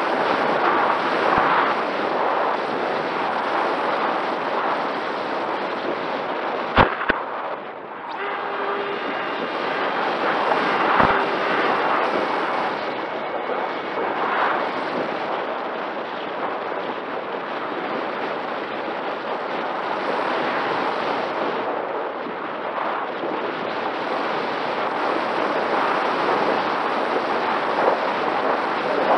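Wind rushing over the onboard camera of a Mini Talon RC plane in flight, with the steady hum of its electric motor and propeller underneath. Two sharp knocks come a few seconds apart in the first half, and the rush briefly drops away soon after.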